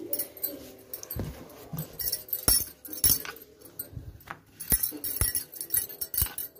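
Rolling pin clicking and knocking irregularly against a rolling board as a paratha is rolled out.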